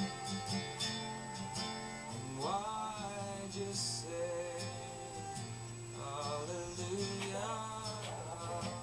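Background music: a country-style song on acoustic guitar, with a singing voice coming in about two and a half seconds in.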